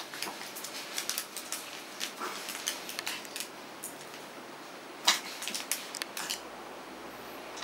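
A Pomeranian's claws tapping on a wooden parquet floor as it shifts about: scattered light clicks in two clusters, the loudest a little past halfway.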